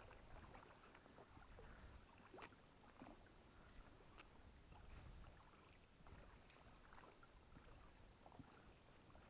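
Near silence with faint, scattered knocks and clicks from handling an inflatable boat while it is being anchored.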